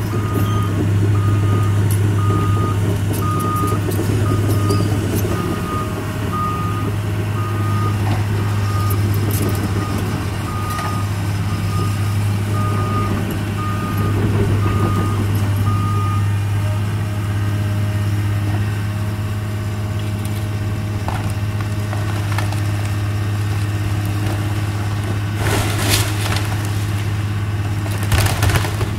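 Caterpillar 315C hydraulic excavator's diesel engine running steadily, with its travel alarm beeping over and over for the first half while the machine backs up. Near the end, loud cracking and crashing of barn timbers as the excavator arm tears into the barn.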